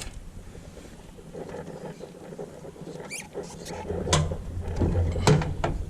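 Hand-work noises on a lawn mower's fuel line: light scratching and rustling, with several sharp clicks in the second half.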